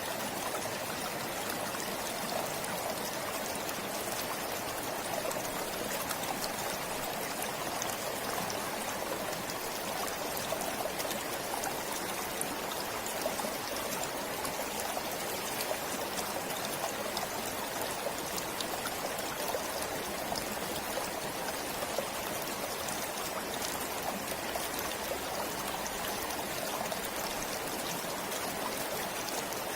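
Stream water flowing steadily: a continuous, even rush with fine trickling.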